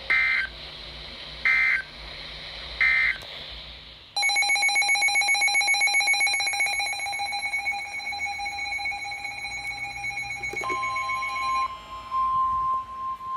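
Emergency Alert System data signal: three short buzzy digital bursts about a second apart, the end-of-message code closing the previous warning. About four seconds in, a loud, rapidly pulsing electronic alert beep starts. Near the end, the steady single-pitch NOAA Weather Radio warning alarm tone begins; it marks the start of a new severe thunderstorm warning.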